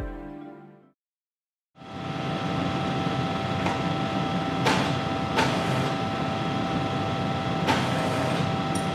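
Background music fades out into a brief silence. Then a Rockford Hy-Draulic metal planer runs with a steady hum and an even whine, broken by a few sharp knocks.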